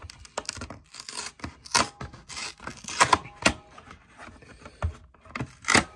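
Cardboard drink-can carton being torn open at its top flap: irregular rips, crackles and scrapes of paperboard, the loudest about three seconds in and just before the end.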